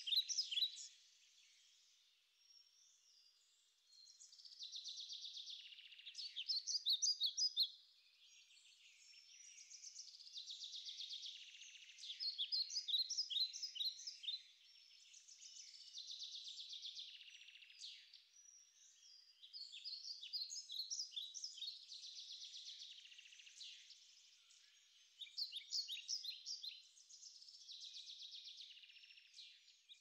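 A small songbird singing: short phrases of rapid, high notes, repeated every two to three seconds with brief pauses between.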